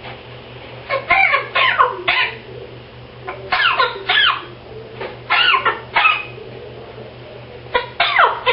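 African grey parrot coughing in a fit: four bouts of three or four short coughs each, about two seconds apart, every cough dropping in pitch.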